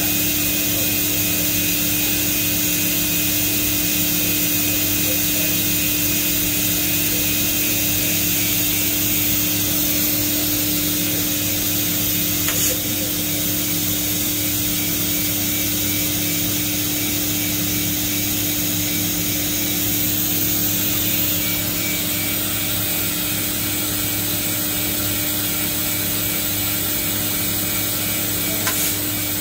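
Roku-Roku Sanyo HC-658 high-speed vertical machining center running idle: a steady hum and whine with a high hiss and no change in pitch. A faint click comes about halfway through and another near the end.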